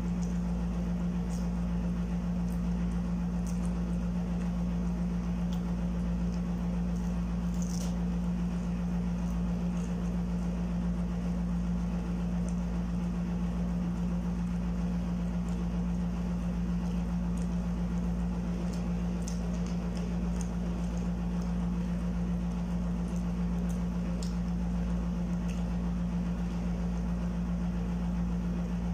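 A steady machine hum at one unchanging pitch over a low rumble, with a few faint clicks.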